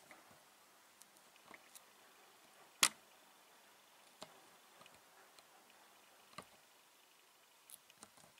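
Faint, scattered small clicks and taps from handling at the fly-tying vise, with one sharper click about three seconds in.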